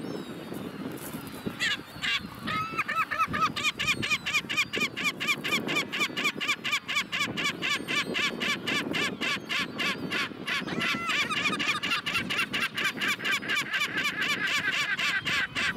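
Kelp gull calling: two or three single calls, then from about two and a half seconds in a long, rapid, unbroken run of repeated calls, several a second.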